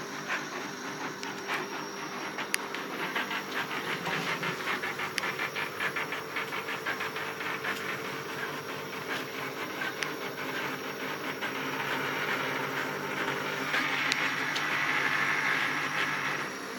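Stepper motors of a 4-axis CNC hot wire foam cutter driving the carriages back to their zero position: a steady whine with rapid fine pulsing, which turns into a louder hissing rush in the last few seconds and drops away just before the end.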